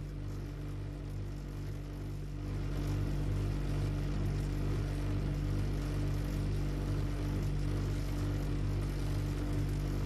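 A steady, low mechanical drone with a slight pulsing, like a motor running. It grows a little louder about two and a half seconds in, then holds even.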